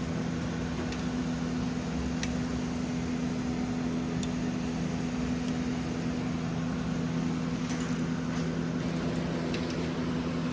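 Steady machine hum, like a fan or other appliance running, with two strong low tones. A few faint clicks come and go over it.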